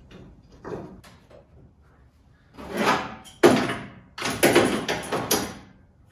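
Raw 3/16-inch steel corner guard being worked into place against a Jeep YJ's rear body tub and clamped. A few light knocks come first, then three loud bursts of metal scraping and rattling in the second half.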